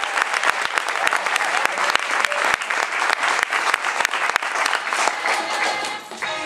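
Audience applauding, a dense run of many hand claps that dips briefly near the end.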